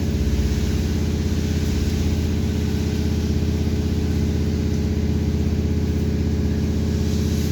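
Inside a BKM 321 trolleybus: a steady, even drone from the vehicle's equipment, a fixed pitched hum with a fast low pulsing underneath, with no change in pitch.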